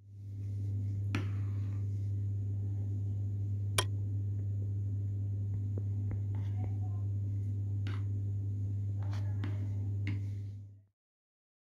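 A metal spoon stirring thick chocolate ganache in a bowl, with several sharp clicks of the spoon against the bowl and soft scraping, over a loud steady low hum. The sound cuts off abruptly near the end.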